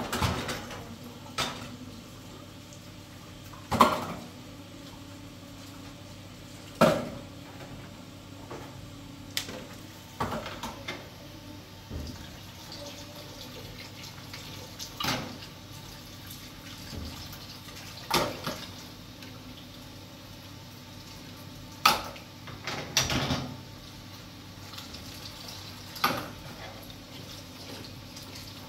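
About a dozen sharp knocks and clinks, spaced irregularly every few seconds and a few in quick clusters, over a steady low hiss.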